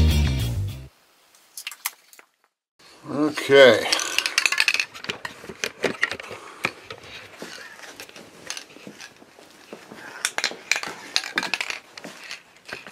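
Background music cuts off just under a second in. A short vocal sound about three seconds in is followed by irregular light clinks, clicks and rattles of hard objects being handled.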